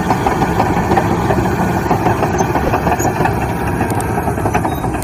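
Caterpillar D9T crawler bulldozer's diesel engine running steadily while the machine pushes a load of dirt with its blade.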